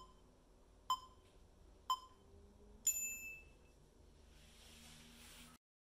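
Countdown timer beeps: three short beeps a second apart, then a longer, higher-pitched final beep marking the end of the timed stretch. A faint hiss follows before the sound cuts off.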